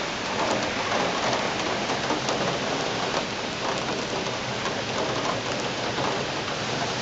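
Steady rain falling on the courtyard below, an even hiss with scattered drop ticks.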